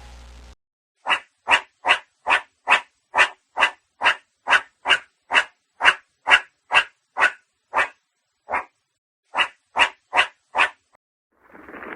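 An animal calling in a long, even series of short calls, about two a second, with a brief pause near the end.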